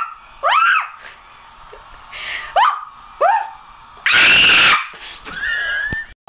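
A young woman's imitation dog barks, three short yelping 'arf' calls, made to set off the anti-bark shock collar on her neck. About four seconds in comes a loud scream as the collar goes off, then a short wavering high squeal.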